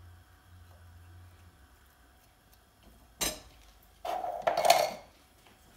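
A metal spoon and a silicone spatula clinking and scraping against each other and a non-stick wok as ghee is put in: one sharp clink about three seconds in, then about a second of clattering near the end.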